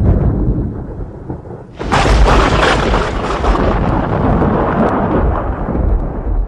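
Thunder: a low rumble dying away, then about two seconds in a sudden sharp crack of a close thunderclap that rolls on in a long rumble, fading near the end.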